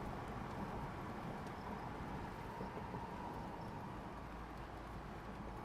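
Steady rushing wind noise with a low rumble underneath, from strong storm winds near a tornado.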